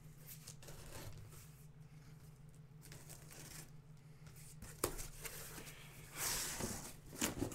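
Cardboard shipping case of trading-card boxes being opened: a ripping, scraping stretch about six seconds in as the packing tape gives, with a couple of sharp knocks against the cardboard around it. A faint steady hum lies underneath.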